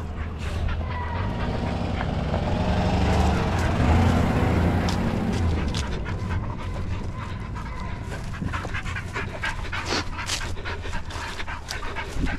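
Hunting hounds panting and whining, over a steady low rumble, with scattered short clicks and rustles in the second half.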